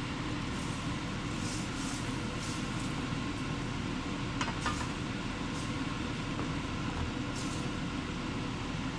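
Cream sauce cooking in a stainless steel skillet, with a few faint, brief ticks or scrapes scattered through it, over a steady low hum.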